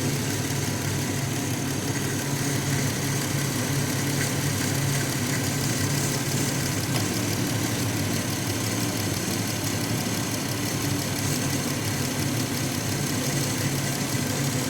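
2016 Dodge Grand Caravan's 3.6-litre Pentastar V6 idling steadily, running fairly quietly on a newly replaced alternator, with a slight noise that the owner takes to be the belt tensioner and a pulley.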